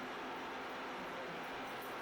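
Steady, even mechanical running noise with no distinct strokes or changes, as of a machine running.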